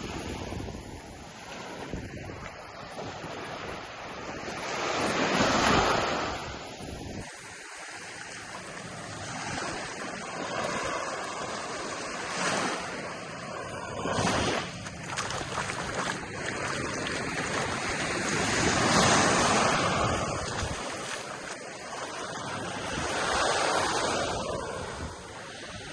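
Ocean surf on a beach: waves breaking and washing up, the hiss swelling and fading every few seconds.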